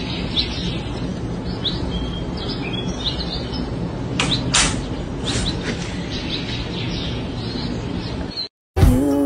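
Small birds chirping repeatedly over a steady background hiss, with a few louder chirps about four to five and a half seconds in. The sound cuts off near the end.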